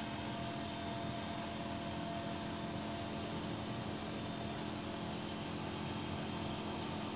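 Steady mechanical hum over a hiss, with a few held tones; it does not change.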